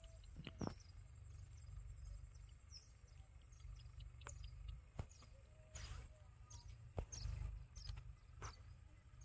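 Faint outdoor ambience: scattered short, high bird chirps over a low rumble, with a few sharp clicks about half a second in, about five seconds in and about seven seconds in.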